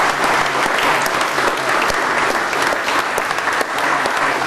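Many people applauding together, a dense and steady clapping.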